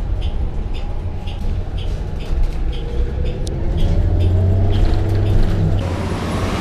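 A city bus in motion, heard from inside: a steady low engine and road rumble with a faint shifting whine. A light regular tick sounds about twice a second. Shortly before the end this gives way to open street traffic noise.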